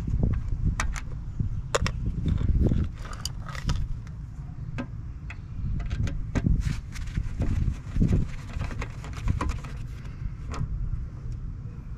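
Scattered light clicks and small metallic taps of a screwdriver working the screws of a Vespa PX turn-indicator lens cover and the plastic lens being handled, over a steady low rumble.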